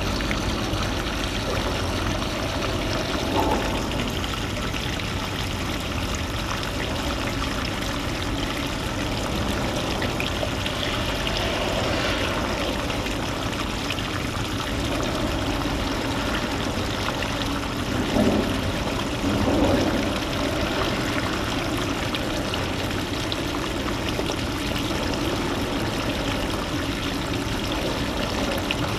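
Shallow seawater moving around the camera: a steady rushing, trickling water noise, with a few brief louder swells, one a few seconds in and two past the middle.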